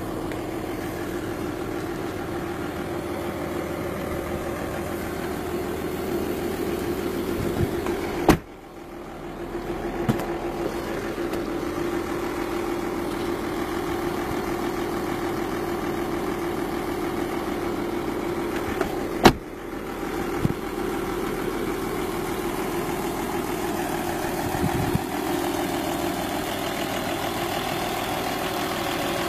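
Audi A8 D2 engine idling steadily, interrupted by two sharp thumps about eleven seconds apart.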